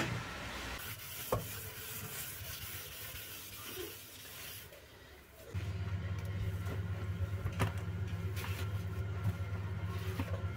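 A cloth rubbing over a foam-covered glass window pane as it is wiped clean, a soft hissing rub with a few knocks. About halfway through, a steady low machine hum starts and keeps going under further light wiping strokes on the glass.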